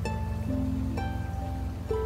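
Background music: a slow melody of plucked string notes, each ringing out, over a held low bass.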